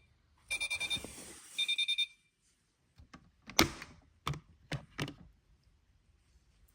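Washing machine's electronic signal: two short rapid trills of high beeps within the first two seconds, followed by several sharp knocks and clunks, the loudest about three and a half seconds in.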